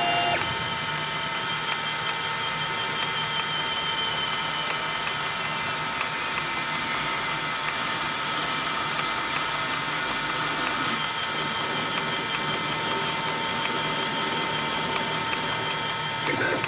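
CNC-converted Myford ML7 lathe running steadily during a turning pass. Its motor and drives hum and whine on several steady tones over a hiss, with a brief sweep in pitch right at the start and again at the end.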